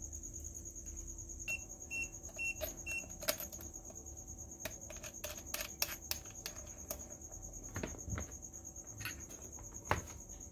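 Scattered sharp clicks and knocks of a soldering station's plastic case and wire connectors being handled and put back together, over a steady, high-pitched pulsing trill. Four short high beeps sound about a second and a half in.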